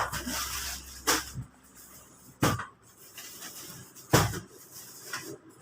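Plastic bags being handled and stuffed into a sack: crinkling and rustling with three sharp knocks, about one, two and a half and four seconds in.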